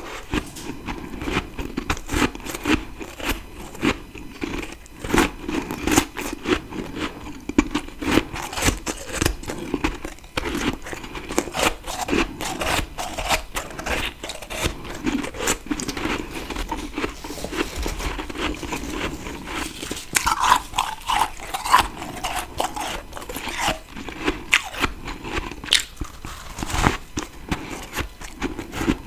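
A person biting and chewing freezer frost close to the microphone: a continuous irregular run of crisp crunches and crackles.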